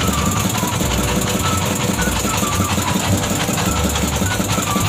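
Small fishing boat's engine running steadily, a rapid, even knocking beat.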